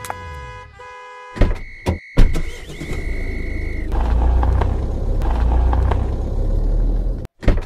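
Car sound effects: electronic beeps like a car's remote-lock chirp, a few door thumps, then a car engine starting and running with a loud low rumble for several seconds. The engine cuts off suddenly near the end.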